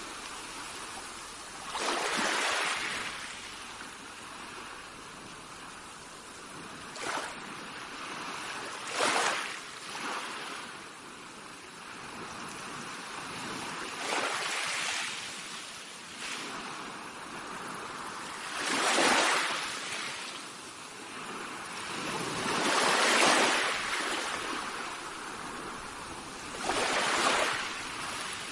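Small waves breaking and washing up a pebbly shore, a swell of surf every few seconds over a steady hiss of water.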